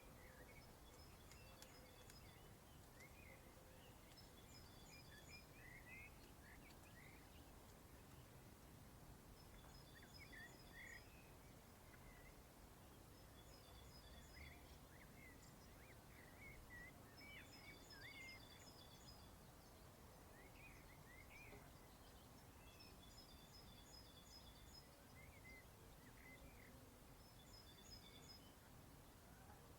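Faint birdsong over a low, steady background rumble. One bird repeats a short phrase of quick, high notes every few seconds, while others give scattered short chirps.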